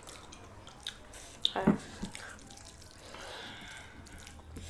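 Close-miked eating sounds: small wet mouth clicks and smacks while chewing, with one louder smack about one and a half seconds in.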